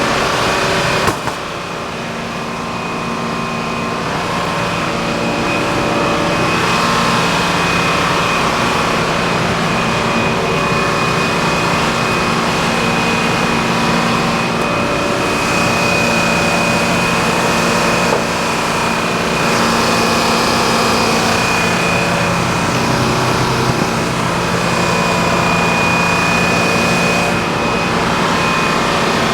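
Sawmill running under load, likely sawing a board off a log: a steady engine drone with a constant high whine.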